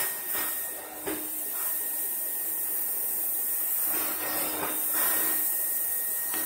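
Roboclean vacuum running with its carpet-shampoo floor tool on the carpet: a steady suction hiss with a faint whine, swelling briefly about a second in and again for a second or so about four seconds in as the head is worked back and forth, picking up the sprayed water.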